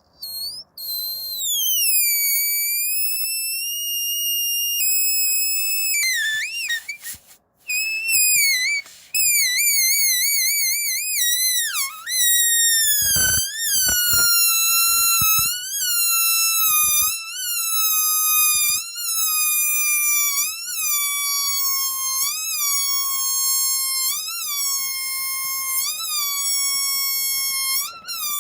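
Rubber balloon squealing as air escapes through its tightly stretched neck: a high, whistling tone that wavers and falls in pitch. Later it pulses with a small rise about once a second while the pitch slowly sinks.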